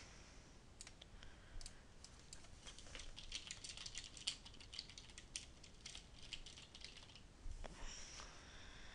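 Computer keyboard typing: a quick run of key clicks in the middle, with a few single clicks before it.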